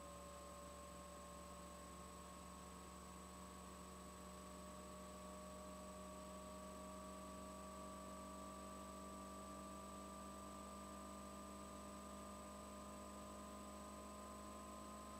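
Faint, steady electrical hum with thin whining tones that drift slowly upward; nothing else stands out.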